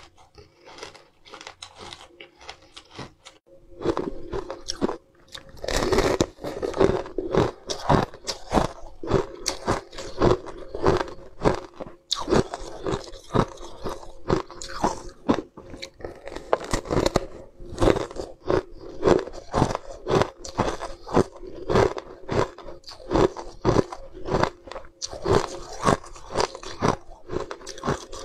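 Ice crunching between the teeth as a coated bar of ice is bitten and chewed: a long run of sharp crunches, soft at first and loud and frequent, one or two a second, from about four seconds in.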